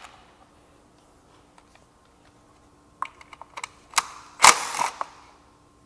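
Cordless impact driver hammering briefly for about half a second, a little over four seconds in, loosening a skid plate bolt on a dirt bike. A few light clicks come just before it.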